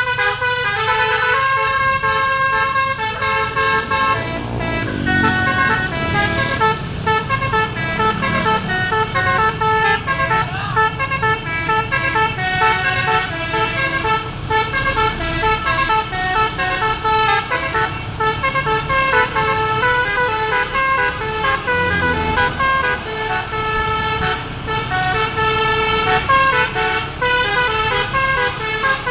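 Bus telolet (basuri) horn playing a fast dance tune: a quick run of short notes, each stepping to a new pitch, with no pause.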